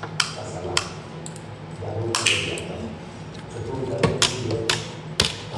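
A series of sharp clicks and taps, about seven, unevenly spaced, from objects being handled, with faint voices underneath.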